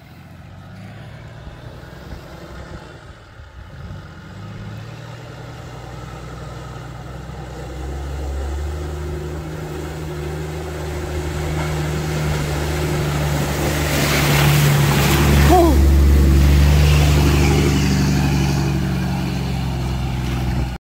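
A vehicle engine running while driving, a steady low hum that grows gradually louder, with a rushing noise about two-thirds of the way through. It cuts off abruptly just before the end.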